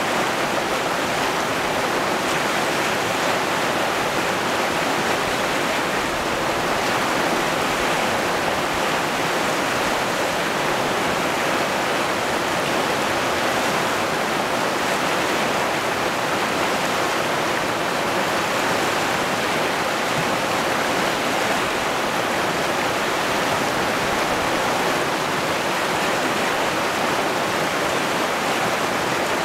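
Rapids of a fast, rocky river, whitewater rushing over boulders in a steady, even hiss and rush.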